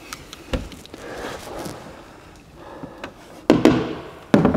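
Hand work on plastic and metal parts in a car's engine bay: scattered small clicks and light knocks, with two louder clattering knocks near the end.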